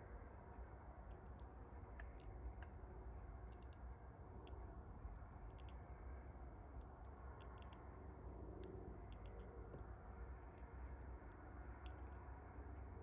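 Red mason bee chewing its way out of its cocoon: faint, irregular clicking and popping, the clicks coming singly and in quick little clusters.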